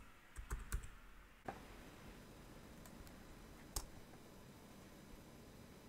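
A few quick computer keyboard keystrokes in the first second, then a faint steady hiss with one more single click about two-thirds of the way through.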